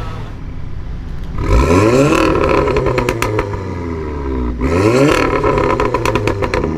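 Modified car with a loud aftermarket exhaust, revved hard twice about three seconds apart; each rev climbs fast, holds briefly and falls away, with rapid crackling pops from the exhaust.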